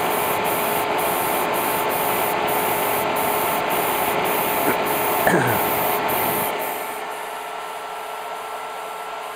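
IBM DPS-2000BB server power supply hissing under about 60–70 A load, the hiss pulsing about twice a second: the sign of its output voltage fluctuating at this load. About seven seconds in, the noise drops noticeably.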